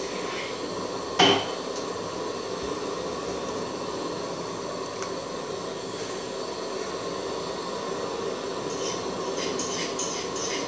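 Gas stove burner running steadily under an aluminium pot of soup, a continuous rushing noise, with one sharp metallic clank about a second in.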